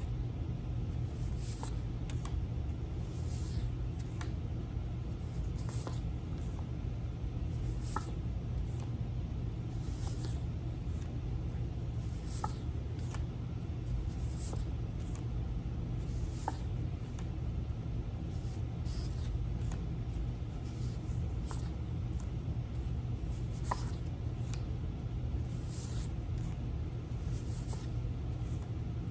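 Paper flash cards swished off the front of a stack every second or two as they are flipped through, over a steady low hum.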